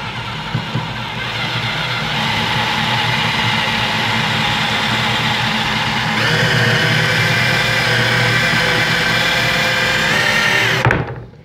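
Power drill spinning a Grabit Speedout screw extractor into the head of a rusted slotted screw, the extractor's drilling end boring into the screw head. The motor runs steadily, its pitch stepping up about six seconds in, and stops abruptly near the end.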